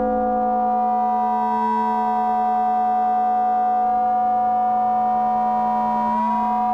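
FM synthesizer drone from sine-wave oscillators patched in the Auraglyph iPad app: a steady stack of electronic tones. From about four seconds in, one tone glides slowly upward as an oscillator's frequency is adjusted.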